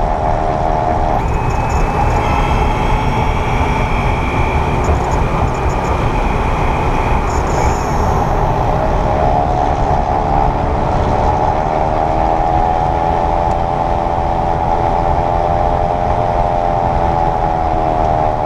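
2022 Kia EV6 front drivetrain making a mechanical whirring whine over steady road rumble, its pitch rising and falling with road speed. It is the noise heard in Eco mode at around 28–30 mph. The whine fades out about a second in and comes back about nine seconds in.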